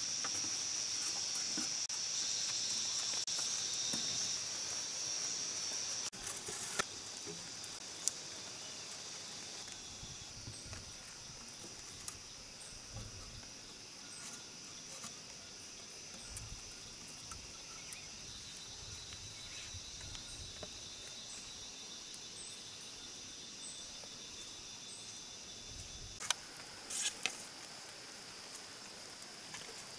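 Steady high-pitched buzzing of forest insects, with a few sharp knocks of bamboo poles being handled, two early on and a cluster near the end.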